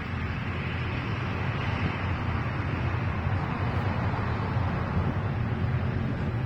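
Airplane engine noise running steadily, growing slightly louder toward the middle, with wind buffeting the microphone.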